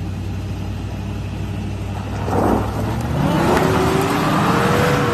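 Off-road 4x4's engine running low, then revved hard about two seconds in, its pitch climbing and holding high before easing off near the end, with a rushing noise alongside. Revving this hard on the climb is what an onlooker fears could snap an axle.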